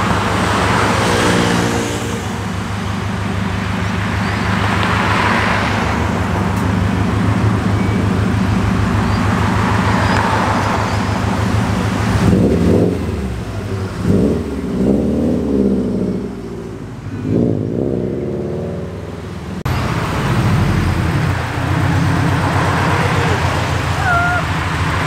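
A turbocharged Subaru WRX's flat-four engine idles, then pulls away about halfway through, its pitch rising and falling as it accelerates. Near the end a second flat-four sports coupe idles.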